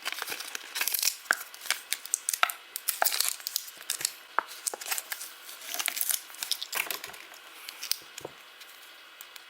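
Crinkling and tearing of thin plastic packaging as the toy cash register's play coins are handled, a dense run of small crackles that thins out near the end.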